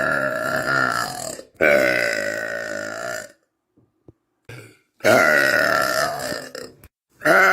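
A person burping in a string of long, drawn-out burps, each lasting one to two seconds, with short pauses between them.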